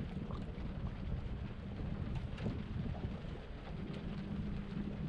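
Wind buffeting the camera's microphone outdoors, a low crackling rumble, with a faint steady hum underneath.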